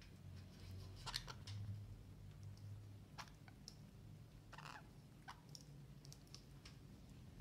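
Faint, irregular clicks and small taps of two orange-fronted parakeets pecking and nibbling at fruit and bread, the loudest cluster about a second in, over a faint low hum.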